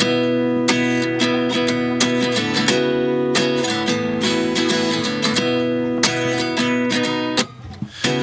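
Background music: acoustic guitar playing a song's intro in regular strums and plucked notes, with a brief drop-out near the end.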